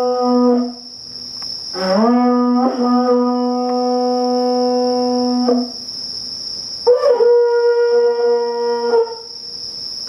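Japanese horagai (conch-shell trumpet) blown in long held blasts. A low note ends just under a second in. A second blast swoops up into the same low note and holds for about four seconds. A third, near seven seconds in, sounds about an octave higher for about two seconds.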